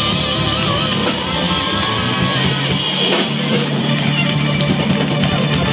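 Live blues band playing, with a Nocaster-style electric guitar up front over electric bass and drums. A high held note wavers and fades about a second and a half in.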